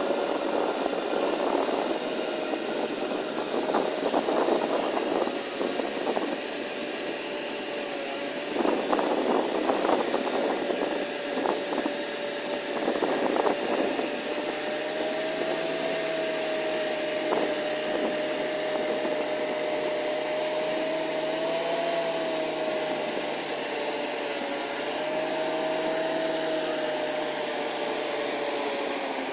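Six-wheeled Zyryanin all-terrain vehicle's engine working steadily with a whine that wavers slightly in pitch as the vehicle crawls through deep mud and water. Spells of louder rough noise come and go in the first half.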